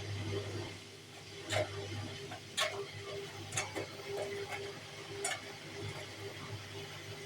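Bosch Series 4 washing machine early in its final spin: a steady low motor hum with a faint tone, and a few sharp clicks roughly a second apart as the drum turns.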